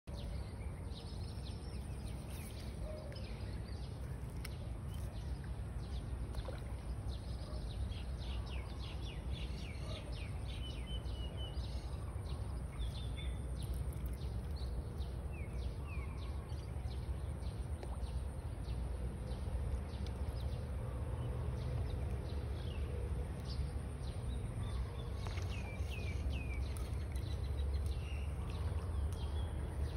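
Outdoor ambience: birds chirping in many short, quick calls over a steady low rumble and a constant high hiss.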